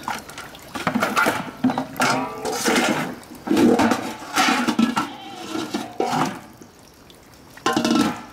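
Metal cooking pots and pans clattering and clanking as they are handled and stacked, in a run of knocks. The clanking pauses briefly, then one more loud clatter comes near the end.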